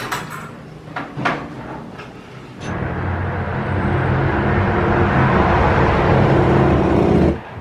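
A few clicks and knocks, then an electric blender runs steadily for about four and a half seconds and cuts off abruptly near the end.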